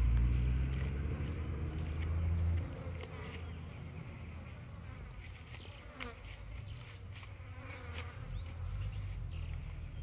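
An insect buzzing near the microphone, over a low rumble that stops about two and a half seconds in.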